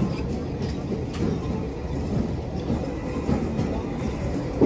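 Athens Metro train running along the line, heard from inside the carriage: a steady rumble of wheels on rail with scattered clicks, and a single sharp knock just before the end.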